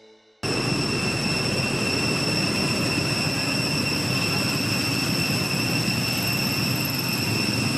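Steady field-recording ambience of a forest: a constant noisy drone with a high, unbroken whine on top, starting abruptly about half a second in.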